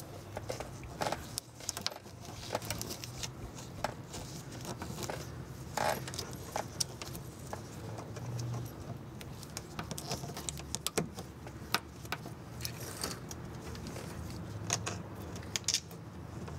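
Irregular light clicks, taps and rattles of gloved hands pushing a wire harness's plastic retaining clips into a car's underbody, over a faint steady low hum.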